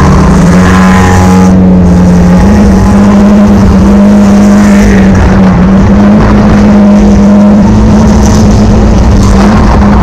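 Drift car's engine heard from inside the cabin, loud and held at high revs, its pitch nearly level with small rises and dips as the throttle is worked.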